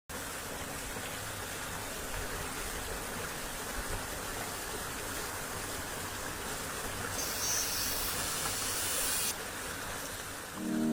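Steady rushing of a mountain stream or waterfall, a continuous even hiss of water. A brighter, higher hiss joins for about two seconds near the end.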